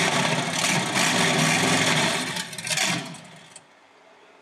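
Engine running hard and loud, rough in tone, then dying away about three seconds in. It sounds like it needs a tune-up.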